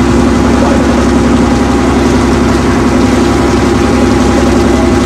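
Boat engine running steadily and loudly, a constant engine note with no change in speed.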